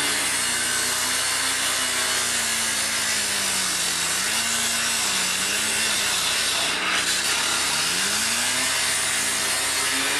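Engine-driven rotary rescue saw (cut-off saw) cutting through a car's steel roof pillar, its abrasive blade grinding metal and throwing sparks. The engine note sags and recovers several times as the blade bites into the pillar.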